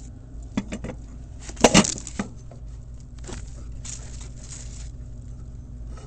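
A few sharp clinks and knocks, the loudest a quick cluster about a second and a half in, over a steady low hum.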